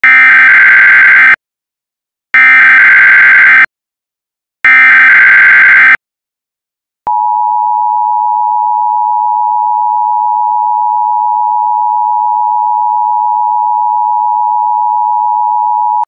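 Emergency Alert System broadcast tones: three bursts of SAME header data, each over a second long with short gaps, then the steady two-tone EAS attention signal, which starts about seven seconds in and holds.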